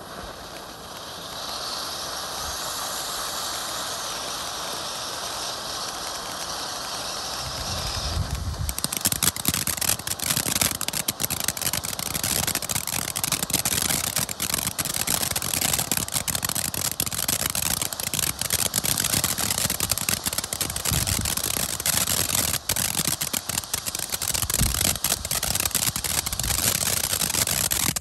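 Powerhouse Fireworks "Sapphire Showers" ground fountain burning: a steady spark hiss at first, then from about eight and a half seconds in a dense crackling as the crackling effect kicks in, with a few low thumps among it.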